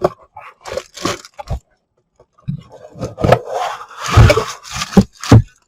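Hands handling the fan's packaging and parts: irregular crinkling, scraping and sharp knocks, busiest in the second half.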